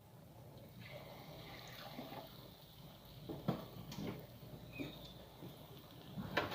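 Bisol batter frying in hot pork lard in a pan: a sizzle that builds from about a second in, with a few sharp clicks.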